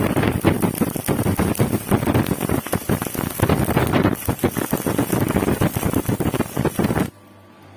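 Stick (MMA) welding arc crackling and sputtering as a 3.2 mm electrode burns. The arc is broken off about seven seconds in, leaving only a faint hum.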